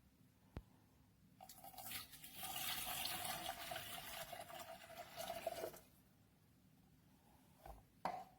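A stream of water pouring for about four seconds, with a steady ringing tone that dips just before the stream stops. A sharp click comes before it and another short click near the end.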